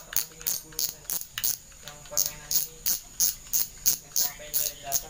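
Maguro Thor 8000 spinning reel clicking steadily, about three clicks a second, as the front of its spool is turned by hand.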